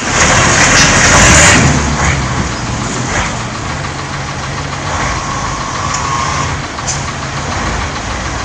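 Kirovets articulated tractor's diesel engine running under load as it hauls a heavy low-loader trailer; loudest in the first second and a half, then steady.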